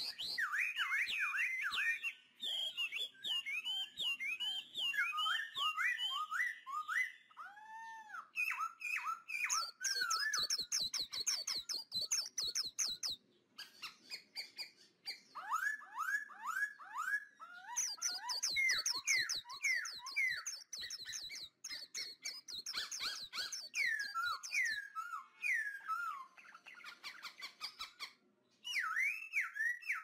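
Forest birds singing and calling: quick runs of repeated chirps and sweeping notes, with bursts of high, rapid trilling, broken by short pauses. Scattered faint clicks sound beneath the birdsong.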